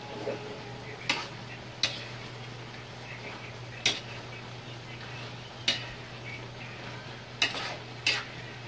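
Spatula stirring chicken afritada in a metal wok, knocking sharply against the pan six times at uneven intervals, over a steady sizzle from the simmering pan.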